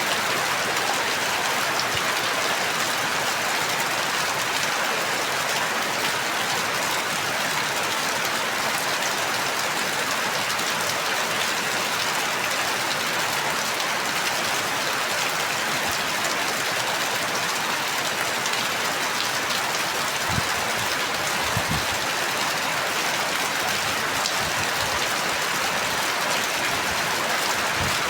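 Steady rain falling, an even hiss with no pauses. A few soft low thuds come in the second half.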